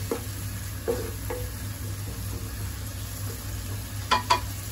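Methi-spinach masala with paneer sizzling gently in a nonstick wok as its tomato liquid cooks off, over a steady low hum. Near the end come two sharp clinks close together.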